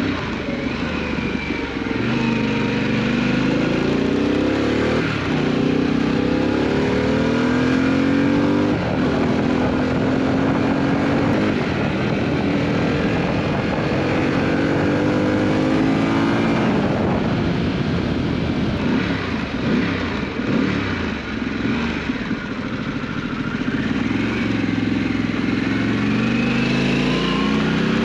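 Harley-Davidson Pan America 1250's V-twin through a Scorpion exhaust, accelerating hard through the gears: the engine note climbs, drops at each upshift about five and nine seconds in, settles mid-way, then climbs again near the end, over a steady rush of wind.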